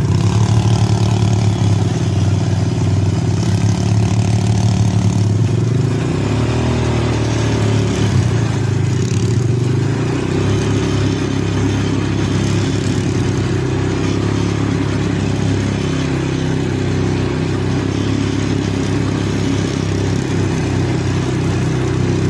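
Small ATV engine running steadily under way on a dirt trail, heard close up from the rider's seat.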